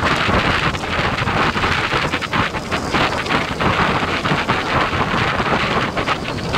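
Wind buffeting the microphone of a motorcycle moving at speed: a loud, steady rush with a low rumble and fluttering gusts.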